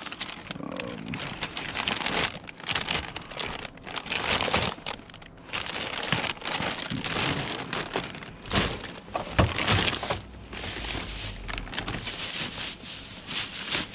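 Plastic carrier bags crinkling and rustling as gloved hands dig through them and pull them open, with a few louder knocks about two-thirds of the way in.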